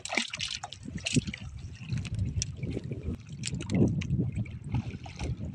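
Sea water lapping and splashing against the hull of a small outrigger boat, with irregular small splashes and trickles as a wet fishing handline is worked over the side, over a steady low rumble.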